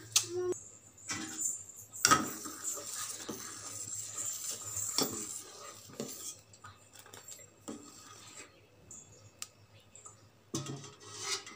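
Metal ladle stirring a pot of boiling milk with vermicelli and sago, clinking and scraping against the metal pot in scattered strokes.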